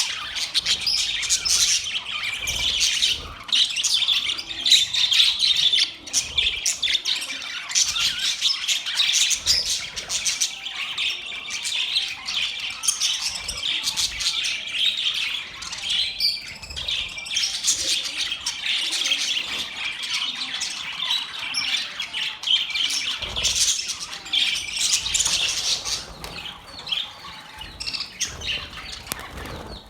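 Budgerigars chattering, with dense, continuous high chirping, warbling and squawks, thinning out over the last few seconds.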